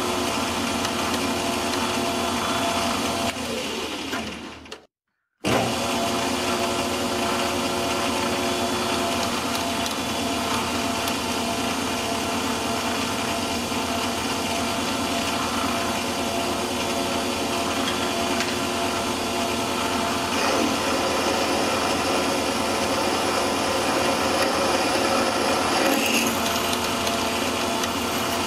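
Small metal lathe running steadily with its motor and gear whine while a tailstock-held drill bit bores into a spinning steel blank. About four seconds in the sound winds down and cuts out for about a second, then comes back at full level.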